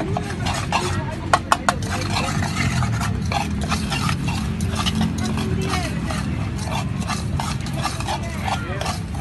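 A metal spoon stirring and clinking in a small steel pot, with three sharp clinks about a second and a half in, over a steady background of street noise and voices.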